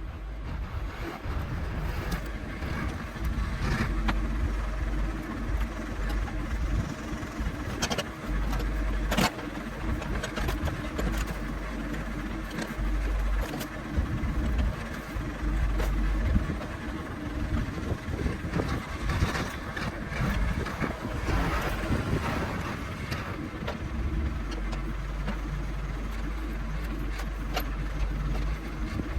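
John Deere backhoe's engine running steadily under work, its level and low note shifting as the machine moves, with scattered sharp cracks and knocks over it.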